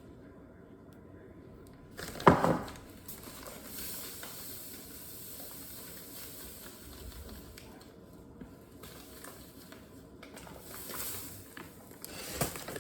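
Granulated sugar being scooped and poured into a measuring cup, a steady grainy hiss, with a loud clunk about two seconds in and another smaller knock near the end.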